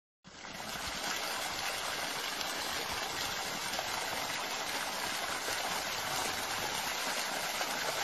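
Steady splashing of water gushing from the trunk of a 100-year-old mulberry tree and falling into the puddle at its foot.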